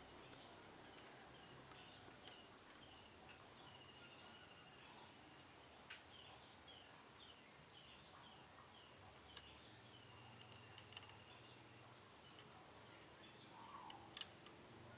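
Young canary twittering faintly: a run of short, high chirps repeating about twice a second, with a couple of sharp clicks.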